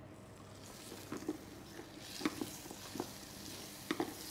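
Butter sizzling as it melts into hot caramelised nuts in a stainless saucepan. The sizzle builds from about halfway through, while a wooden spoon stirs and knocks against the pan several times. This is the final step of caramelising the nuts, once the sugar has fully coloured.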